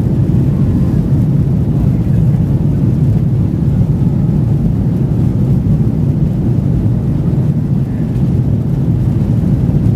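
Airliner's jet engines heard from inside the cabin: a steady, loud, low rumble as the plane runs at high power for takeoff.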